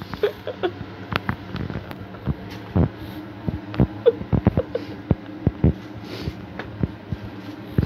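Irregular clicks and knocks, a few each second, over a low steady hum.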